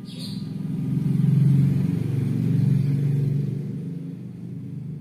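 A motor vehicle's engine passing by, swelling to its loudest about a second and a half in and slowly fading away.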